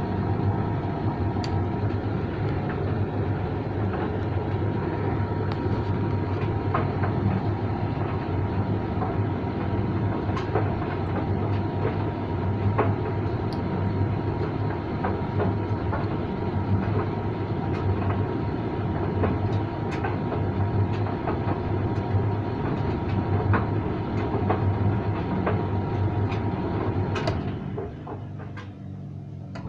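Creda 37762G tumble dryer running: a steady rumbling hum from the motor and turning drum, with scattered clicks and knocks. Near the end the sound briefly gets quieter and duller.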